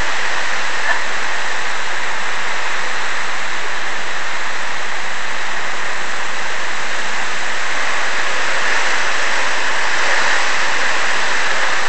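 Steady, loud hurricane rain, a constant hiss with no letup.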